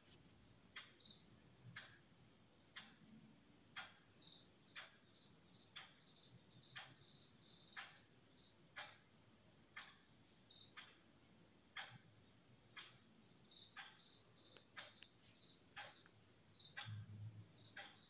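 Faint, steady ticking, about one tick a second, like a clock, with faint short high chirps between the ticks.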